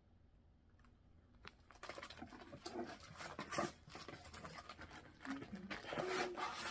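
Rustling of plastic-sleeved paper pattern packets and a cardboard box being rummaged through, as a run of irregular crackles and light knocks that start about two seconds in.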